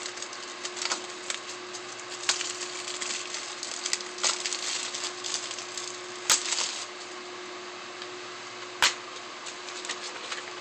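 Cellophane shrink wrap crinkling and crackling in irregular bursts as it is peeled off a Blu-ray case, with two sharp clicks, about six seconds in and about nine seconds in.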